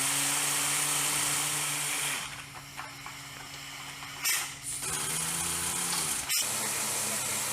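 Machinery running with a steady hum and hiss, its pitch and level shifting a couple of times, with one sharp click about six seconds in.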